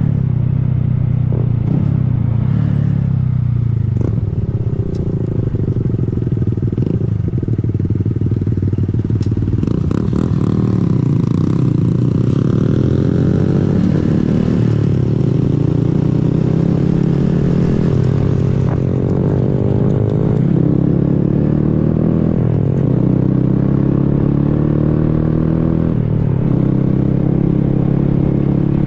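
Honda Grom's small single-cylinder engine running while riding, its pitch rising and falling repeatedly as the bike speeds up, backs off and changes gear.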